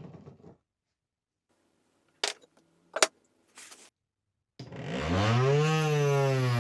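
Homemade mini table saw with twin DC 775 motors spinning up with a rising whine about four and a half seconds in. Before it, the previous run winds down at the start, then come two sharp clicks.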